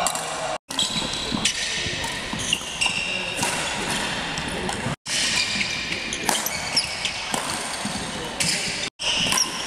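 Badminton doubles rally: rackets striking a shuttlecock in sharp hits, with short high shoe squeaks on the hall floor and voices in an echoing sports hall. The sound cuts out briefly three times.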